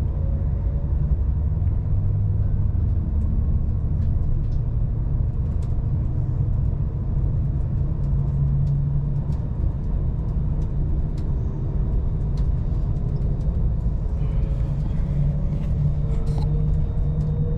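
Avanti West Coast train heard from inside the carriage as it pulls away from the station: a steady low rumble, with a few faint light clicks and a faint whine rising slowly near the end as it gathers speed.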